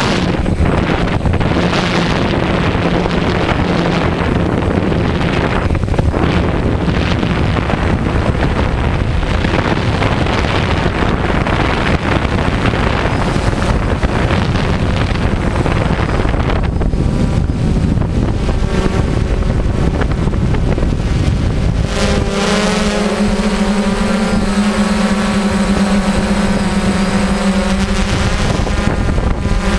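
DJI quadcopter's motors and propellers buzzing steadily in flight, picked up by the onboard camera, with wind rushing over the microphone. Late on the wind noise drops away and a steady motor hum comes through clearly.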